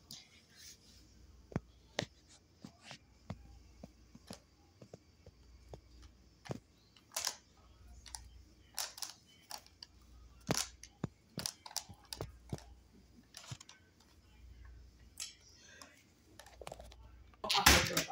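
Clear plastic bag of cookies being handled, with scattered sharp clicks and short crinkles at uneven intervals.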